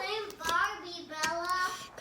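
A young girl's voice singing or sing-song vocalizing in long, gliding notes with no clear words.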